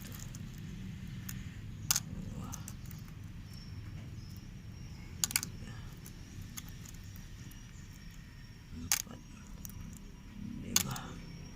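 Five sharp, short clicks a few seconds apart, two of them close together near the middle, over a steady low hum.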